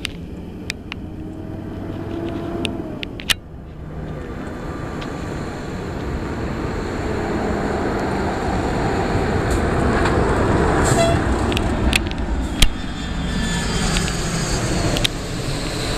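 Jet engines of a KC-10 Extender (military DC-10 type) tanker on landing approach, growing steadily louder to a loud rushing roar as it passes low overhead. High engine whines fall in pitch after the peak as it goes by. There are a few sharp clicks, the strongest about three-quarters of the way in.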